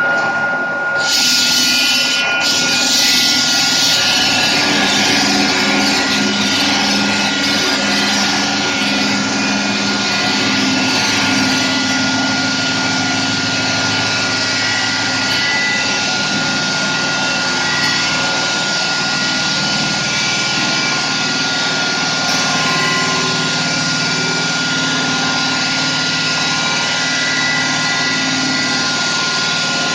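Liomax 6x600 electric stone-cutting saw running with its diamond blade: a loud, steady mechanical whine with one constant high tone, which grows louder about a second in and then holds.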